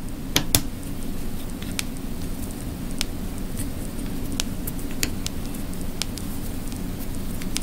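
Scattered light metallic clicks and ticks, irregularly spaced, as an Allen key works the screws of a pneumatic solenoid valve's control cap, over a steady low hum.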